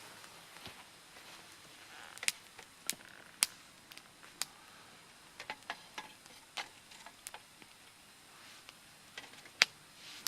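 Wood fire crackling, with irregular sharp pops and snaps, the loudest near the end.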